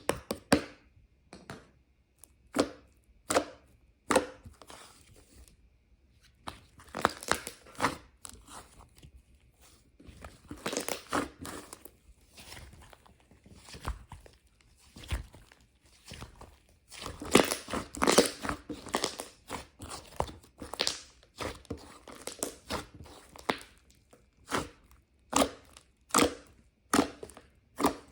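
Irregular knife chops and taps on a cutting board, with short rustling stretches in between.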